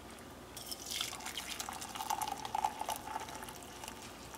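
Hot water poured in a thin, steady stream from a kettle into a glass teapot over loose white tea leaves, starting about a second in.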